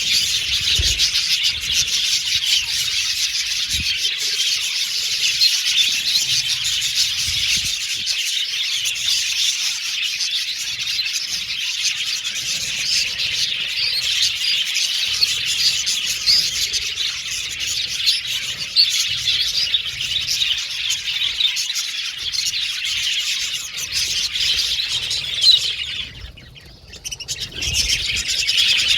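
A colony of budgerigars (budgies) chattering and chirping together, a dense, continuous warble of many birds at once. It dips briefly near the end, then picks up again.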